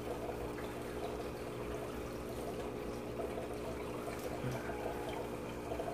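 Steady bubbling and trickling of aquarium aeration from air stones, with a steady low hum underneath.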